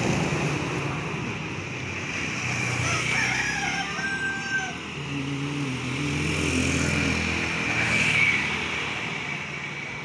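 A rooster crows once about three seconds in, one long held call. A motorcycle engine then passes close by, rising and fading over a few seconds.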